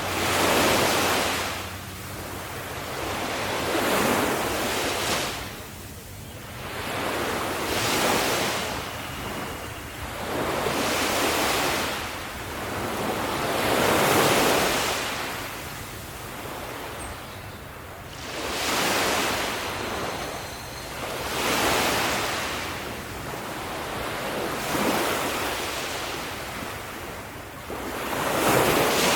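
Ocean waves breaking on a beach: surf rushing in and drawing back in repeated surges, one about every three to four seconds.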